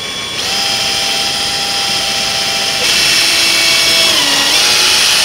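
Cordless 20-volt drill running steadily as it bores a small pivot hole straight down through a teakwood board. Its whine gets louder about halfway through, drops in pitch near the end and then cuts off.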